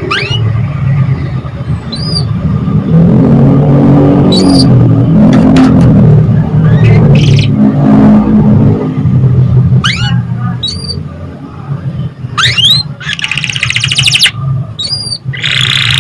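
Songbird chirps: quick rising calls, paired high whistles, and a buzzy trill a little after halfway and again near the end. Under them runs a loud low rumble like an engine, heaviest in the first half.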